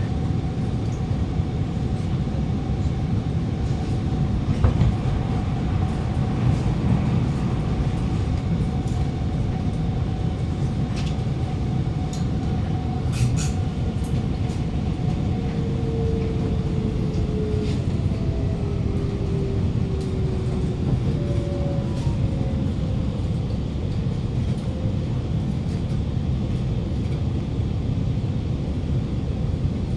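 Alstom Movia R151 metro train running between stations, heard from inside the carriage: a steady rumble from the running gear with a faint whine that slowly drifts lower in pitch.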